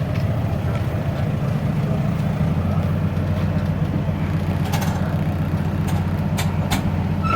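Forklift engine running steadily at a low, even drone while it tows the fifth-wheel trailer, with a few sharp clicks or knocks in the second half.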